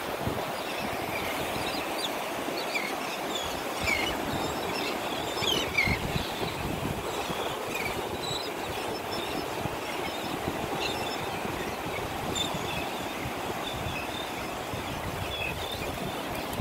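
Steady surf and wind noise rushing on the microphone, with scattered short, high chirps throughout.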